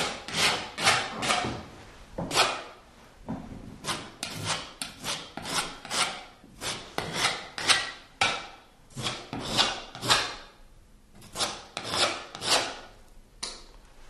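Patching compound being spread and scraped over nail holes in a plaster wall: a run of short, irregular scraping strokes, about one or two a second.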